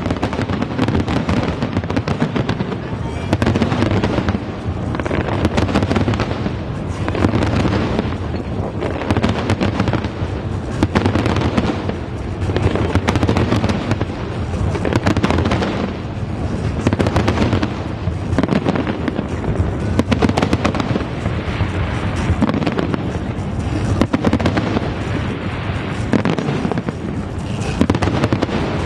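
Fireworks display with shells bursting and crackling in quick, continuous succession, over music.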